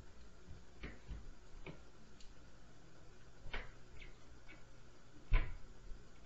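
A scattered series of knocks and thumps from the apartment upstairs, about one a second, heard through the ceiling. The loudest is a heavy thump about five seconds in.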